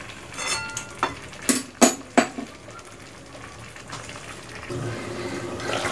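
Silicone spatula stirring yogurt-marinated chicken and potatoes in a kadai over high flame, with a few sharp knocks against the pan about one to two seconds in. Under it the marinade sizzles, growing louder near the end as it starts to give off its liquid.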